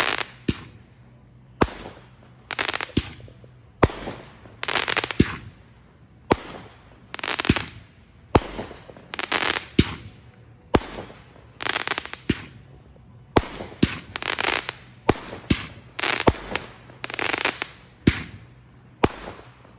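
Fireworks going off in a steady run: a sharp bang about every second, each followed by a short burst of crackling hiss.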